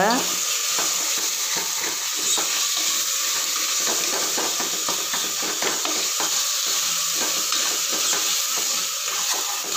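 Ground masala paste with tomato pieces sizzling as it fries in a pressure cooker. A metal spoon stirs it and scrapes the pot's base in many small ticks. The paste is at the stage of being fried until its raw smell goes.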